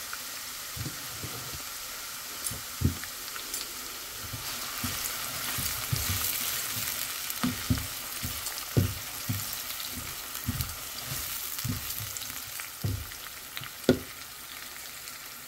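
Chopped onion and garlic sizzling in hot oil in a nonstick pan, frying toward golden brown. A slotted silicone spatula stirs them, making irregular soft knocks and scrapes against the pan from about a second in until near the end.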